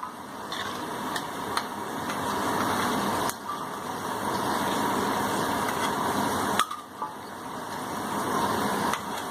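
Spinach pakoras deep-frying in hot oil: a steady sizzle that drops away briefly twice, with a few light clicks.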